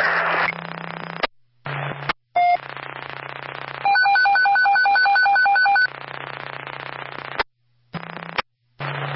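Scanner radio channel keying on and off: bursts of radio static with a steady hum, cut by short silent breaks. Near the middle, a rapid pulsed electronic beep runs for about two seconds, about six beeps a second.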